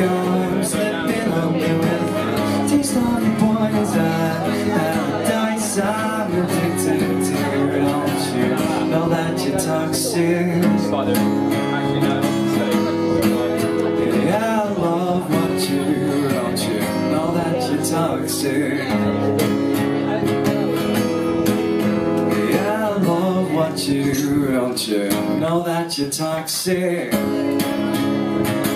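Acoustic guitar strummed with a man singing over it, a live solo performance of a song.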